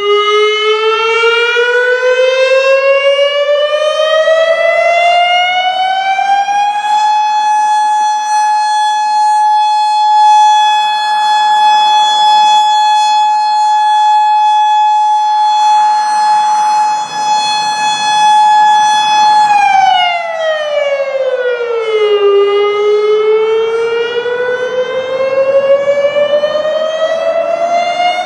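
Federal Signal Modulator 6048 electronic outdoor warning siren sounding a monthly test tone. It starts suddenly, rises in pitch for about seven seconds and holds a steady high tone until about twenty seconds in. It then falls for a couple of seconds and begins rising again near the end.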